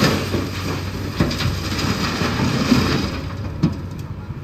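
Heavy diesel engine running at a steady low note, with a rattling clatter and a couple of sharp knocks, one about a second in and one near the end.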